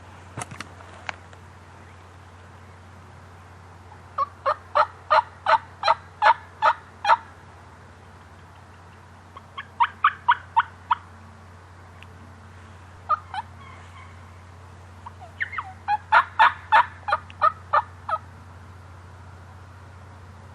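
Turkey yelping: four runs of short, evenly spaced yelps, about three a second, with the longest runs of ten or more notes at about four seconds and again near the end. A few faint clicks come at the start.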